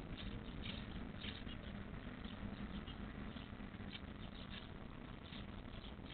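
Faint, short, high squeaks and cheeps at irregular intervals from songbird nestlings begging in a nest box, over a steady low hum.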